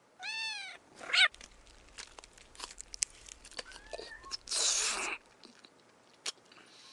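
A cat meowing: one long meow that rises and falls, then a shorter, sharper one right after. Scattered small clicks follow, with a brief rush of noise about four and a half seconds in.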